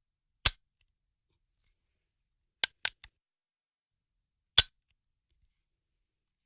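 Gunshot sound effect: five short, dry cracks. There is a single shot, a quick burst of three, and then one more shot.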